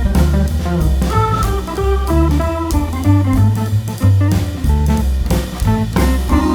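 Background music: an upbeat jazzy instrumental with a bass line, drum kit beat and guitar or organ chords.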